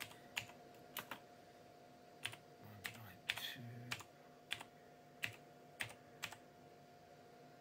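Slow, uneven typing on a Chicony KB-5191 mechanical keyboard: about a dozen separate key clicks as a ping command with an IP address is typed. A faint steady hum runs underneath.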